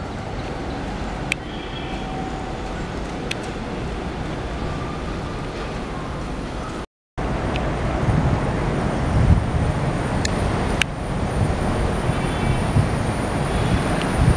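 A diesel freight train running past with a steady rumble and a few sharp clicks. After an abrupt cut, a WDM-3D diesel locomotive's engine rumbles as it approaches, growing louder.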